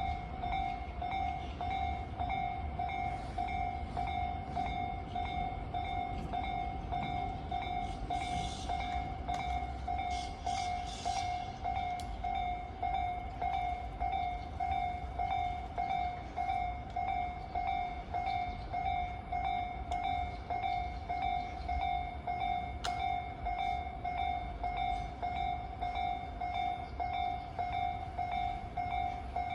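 Japanese level-crossing warning bell ringing, a steady evenly repeating electronic ding, while a Tobu Tojo Line electric train runs through the crossing with a low rumble.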